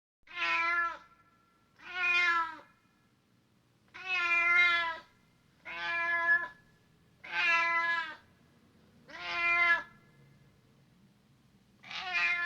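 Domestic cat meowing: seven separate meows, each under a second long, with short pauses between them.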